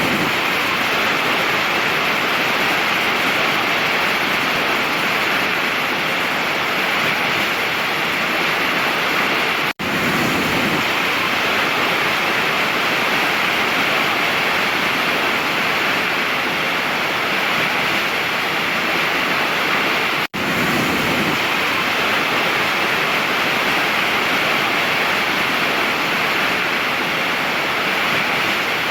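Steady rushing noise of a large waterfall, cutting out for an instant twice, about ten and twenty seconds in.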